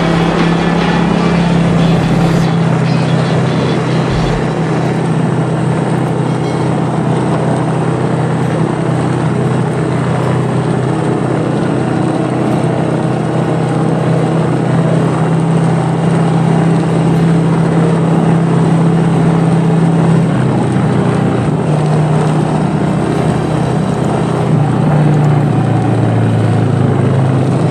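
Motorcycle engine running steadily while riding, over a constant rush of noise. About two-thirds of the way through, the engine note drops to a lower pitch.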